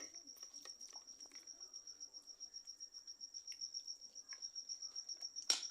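A cricket chirping steadily in a fast, even pulse of about ten chirps a second. Faint scattered clicks run under it, and one sharp click comes near the end.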